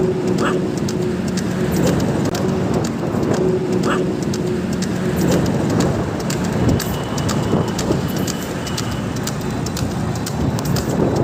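Steady road noise from moving at speed behind a buffalo-drawn cart on asphalt, its wheels rolling and wind buffeting the microphone, with many small crackling clicks. A low engine hum runs through the first half.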